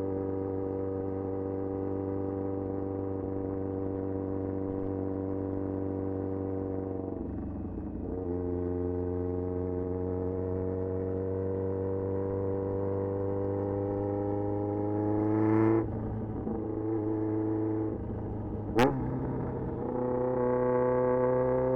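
Loud exhaust of a 1994 Yamaha XJR1200's air-cooled inline-four cruising at low revs. The pitch climbs slowly as it pulls in gear, with a gear change about seven seconds in and another about sixteen seconds in. A single sharp crack comes near nineteen seconds.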